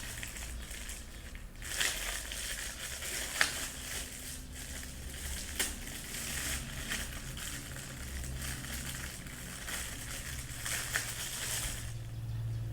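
Plastic packaging crinkling and crackling as it is unwrapped by hand from a small DC motor, with scattered sharp crackles; it stops near the end.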